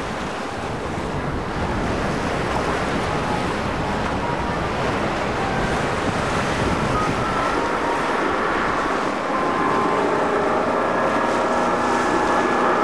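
Choppy water and wake rushing, with wind buffeting the microphone. From about halfway, the steady whine of a passing center-console boat's twin Yamaha outboard motors rises over the water and is loudest near the end.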